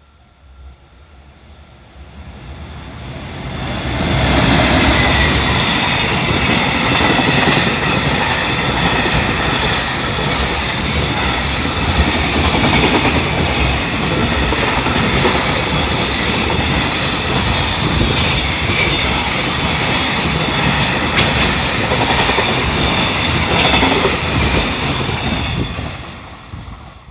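EF210 electric locomotive and its freight train passing close by. The noise builds over the first few seconds as the locomotive arrives. It then holds as a loud, steady rumble and clatter of wagon wheels on the rails, with a high whine over it, and fades away near the end.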